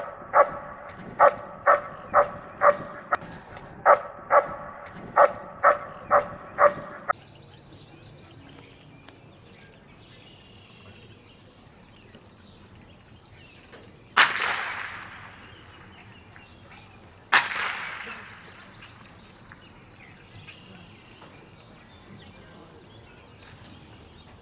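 A dog barking about a dozen times in quick succession, stopping abruptly after about seven seconds. Later, two sharp blank-pistol shots about three seconds apart, each echoing away, fired as the gunfire test during heeling in a working-dog obedience routine.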